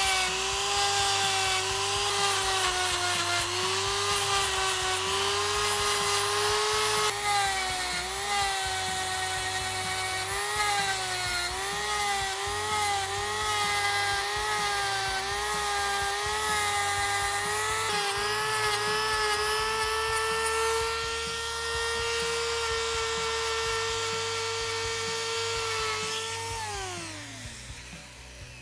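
Die grinder spinning a spiral-roll abrasive against a brazed fillet on a steel bicycle frame, smoothing the joint. It makes a steady whine that dips and wavers in pitch as it is pressed into the work, holds a little higher when eased off, then winds down after it is switched off near the end.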